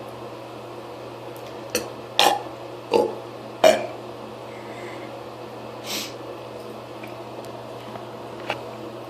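A person burping: three short burps a little under a second apart, the last the loudest, then a softer breath a couple of seconds later.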